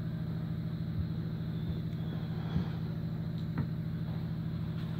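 A steady low mechanical hum, with two soft taps about a second apart partway through.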